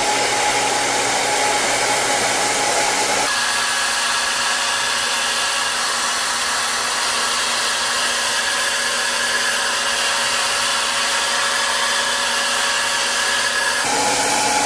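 Handheld hair dryer with a concentrator nozzle blowing steadily on long hair: a loud, even rush of air with a motor whine. The whine jumps to a different pitch about three seconds in and drops back near the end.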